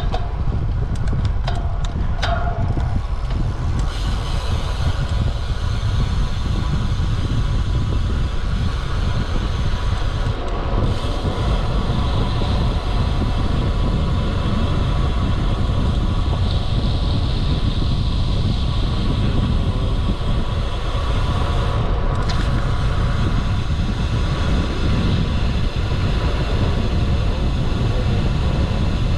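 Steady wind rumble on the microphone and road noise from a bicycle riding at speed.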